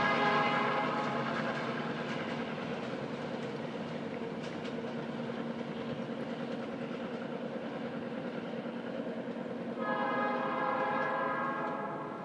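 Horn of a diesel freight locomotive pulling away: one blast ends about a second in, then a second long blast starts about ten seconds in. A steady rumble of the moving train runs between the blasts and slowly fades.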